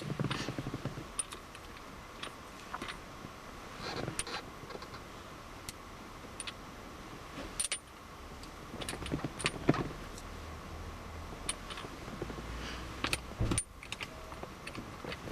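Small metallic clicks and clinks of an Allen key working the tiny grub screws on an aftermarket gear knob, with scattered knocks from handling the knob on the gear lever.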